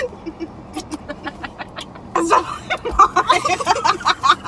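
Several young women laughing: soft, pulsing giggles at first, breaking into loud, high laughter about two seconds in.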